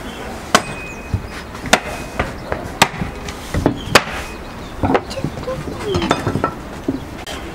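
Long thin wooden rolling pin knocking and clacking on a tiled tabletop as a thin sheet of dough is wrapped around it, rolled and unrolled. The knocks are sharp and irregular, roughly one or two a second.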